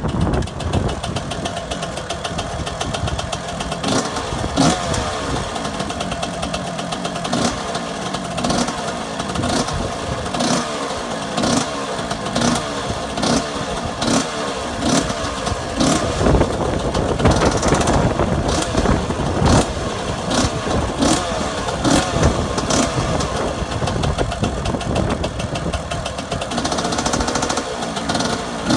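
A 1996 KTM 125 two-stroke engine with an FMF exhaust, running just after a cold start without choke. It runs unevenly, with short sharp revs roughly once a second and a longer rise and fall in revs about two-thirds of the way through.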